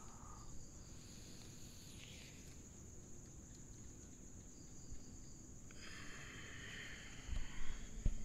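Crickets calling steadily at night, a continuous high-pitched chorus, with a lower buzzing joining about six seconds in. Near the end come a few low thumps, the loudest sounds.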